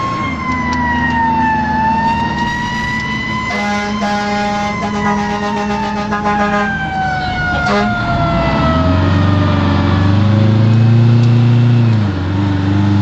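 Fire engine siren wailing, heard from inside the cab, with a steady air horn blast of about three seconds partway through. After the horn the siren winds slowly down in pitch while the truck's engine drops and then picks up again as it accelerates.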